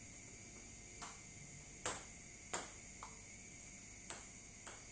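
Table tennis rally: the ball striking the rubber paddles and bouncing on the table, a run of sharp clicks at uneven intervals starting about a second in.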